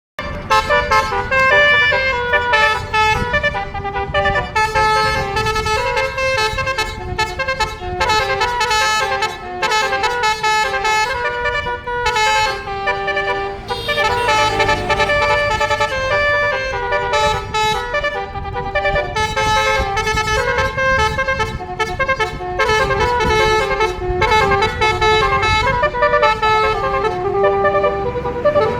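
Telolet basuri multi-tone musical bus horn playing a tune of stepped, held notes, over a low rumble.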